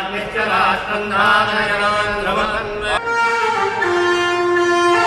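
Chanting with a wavering pitch, then an abrupt cut about three seconds in to a wind instrument playing long held notes.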